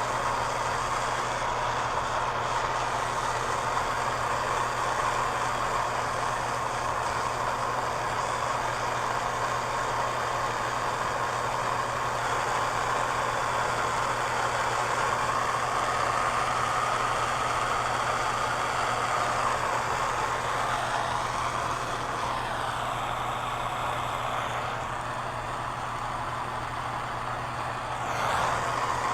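Acetylene torch flame burning with a steady rushing hiss while heating a pipe joint for soldering; the sound shifts briefly near the end.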